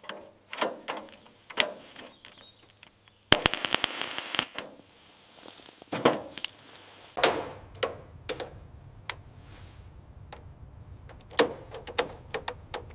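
Workshop hand-tool work: a series of sharp knocks and clicks, with a fast rattle of clicks about three seconds in. A low steady hum comes in about seven seconds in.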